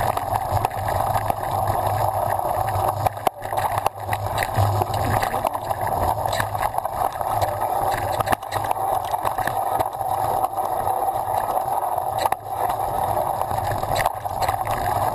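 Downhill mountain bike descending a dirt trail, heard from a camera mounted on the bike: steady rushing ride noise with scattered knocks and rattles as it runs over bumps.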